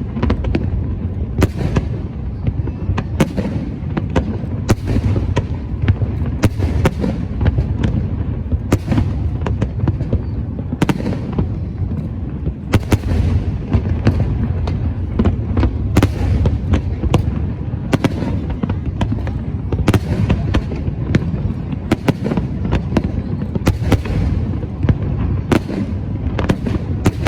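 Aerial fireworks going off: a continuous run of irregular bangs and sharp cracks, several a second at times, over a steady low rumble.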